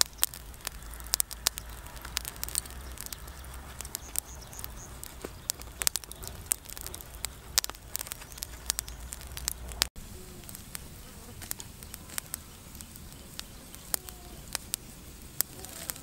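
Charcoal fire crackling, with sharp, irregular pops throughout.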